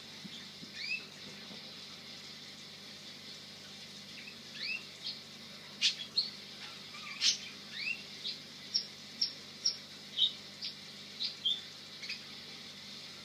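Domestic canary chirping in the background: short, separate call notes, several curving upward in pitch, a few quick runs of three, busiest in the middle of the stretch.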